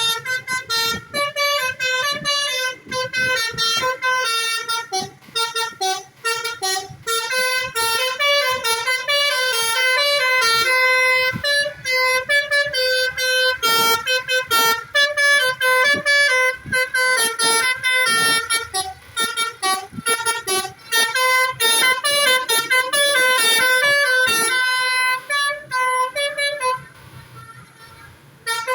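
Basuri telolet horn, the multi-trumpet melodic air horn of an Indonesian bus, playing a fast tune of quickly changing notes, dropping to a much quieter stretch near the end.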